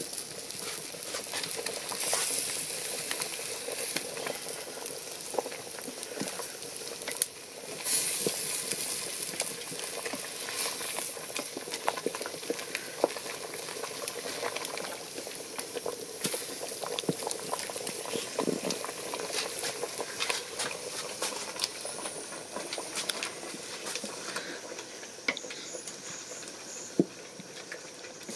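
Chicken in peanut-butter sauce boiling in a metal pot over a wood fire while being stirred with a wooden spoon, with many small sharp pops and clicks.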